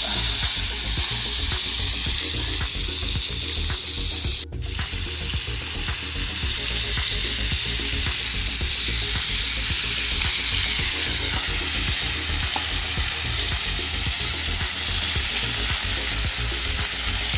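Pork, lard and freshly added boiled potatoes sizzling steadily in hot fat in a harrow-disc pan over a campfire. The sound briefly drops out about four and a half seconds in.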